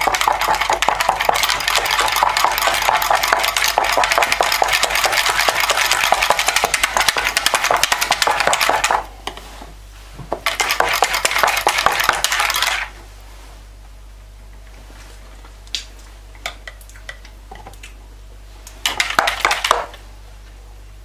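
Small metal wire whisk beating a thick sauce in a plastic jug: a fast, dense rattle of the wires against the jug. It stops about nine seconds in, comes back for a couple of seconds, then gives way to a few light taps and one short burst of whisking near the end.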